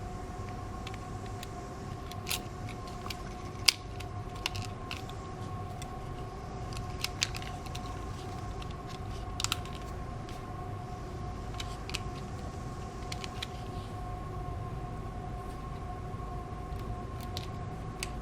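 Scattered small clicks and taps of tools and small parts being handled during phone reassembly, the sharpest a little under four seconds in and again near the middle, over a steady background hum.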